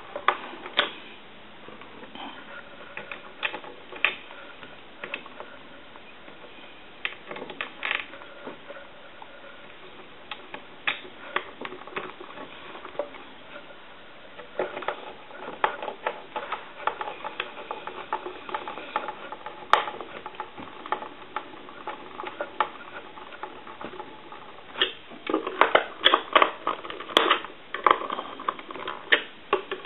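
Scattered clicks, taps and light knocks of a Crosley 302 reproduction desk telephone being reassembled by hand, its parts and housing being fitted together, with a busier run of clicks near the end.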